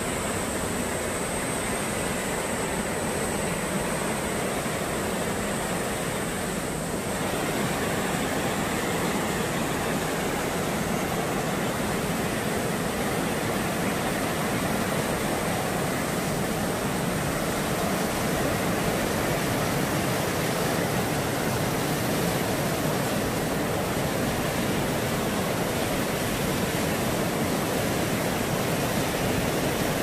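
Mountain stream rushing over rocks and small rapids: a steady, even noise of fast-flowing water.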